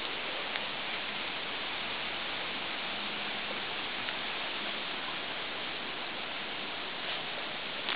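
A steady, even hiss with a few faint ticks.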